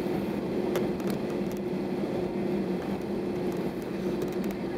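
Airbus A320 cabin noise while taxiing: a steady drone of the jet engines at taxi idle and the cabin air, with a constant low hum. A few faint clicks.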